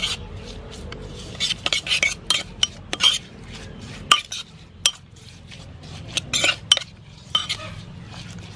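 A metal spoon stirring sliced lemongrass and sauce in a black ceramic pot, clinking and scraping against the pot at irregular intervals.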